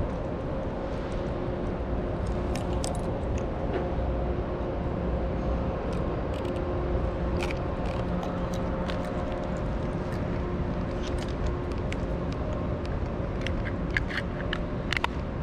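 Steady outdoor city ambience: a low rumble with a constant mechanical hum, overlaid by scattered light clicks and taps that bunch up near the end.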